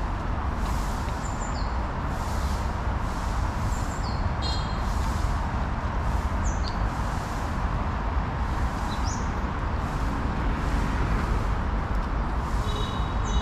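Steady low hum of city ambience with short, high bird chirps every few seconds, and two brief buzzy calls, one about four seconds in and one near the end.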